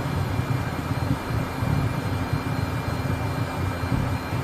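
Learjet's jet engines heard from inside the cockpit while the jet taxis: a steady low rumble with a faint, thin high whine above it.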